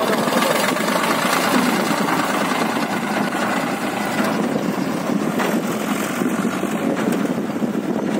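Swaraj farm tractor's diesel engine running steadily as it pulls a loaded trailer away, its level easing slightly after about three seconds.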